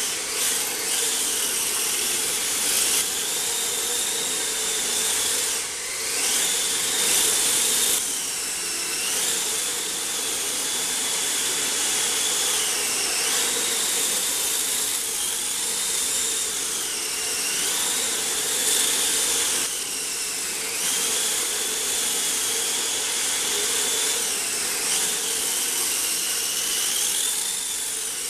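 Small radio-controlled car's electric motor whining as it drives on concrete, its pitch dipping and climbing back several times as the throttle is eased off and reapplied, over a steady hiss of the drivetrain and tyres.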